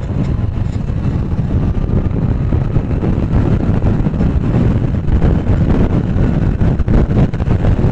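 Wind buffeting the microphone of a moving Hero HF Deluxe 97 cc motorcycle, with its small single-cylinder four-stroke engine running beneath the rumble.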